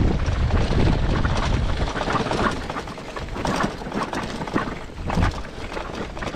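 Wind buffeting an action camera's microphone during a bicycle ride, with tyre and road noise and scattered clicks and rattles. The low wind rumble is heaviest for the first two seconds or so, then eases.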